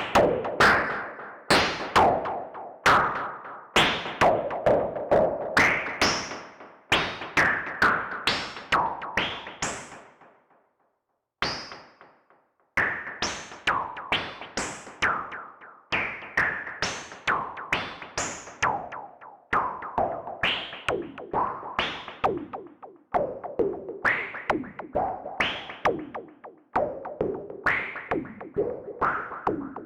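Modular synthesizer playing a sequenced pattern of drum-like hits: bursts of noise through a Wasp filter, each struck by an envelope and decaying quickly, with delay echoes trailing behind. The hits come a few times a second and pause briefly about a third of the way in.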